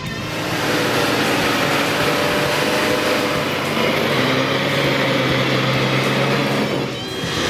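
A vehicle engine running steadily with a constant pitch, briefly dropping away about seven seconds in before a similar engine sound resumes.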